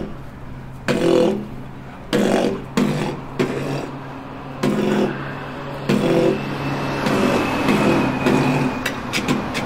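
Solo beatboxing: heavy vocal drum hits about once a second over a steady low bass tone. In the second half it turns into a continuous buzz with a thin high whistle, then a run of quick clicks near the end.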